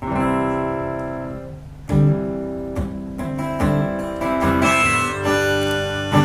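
Acoustic guitar playing the intro of a song: a first strummed chord rings out and fades for nearly two seconds, then a firm strum and a run of further strokes follow.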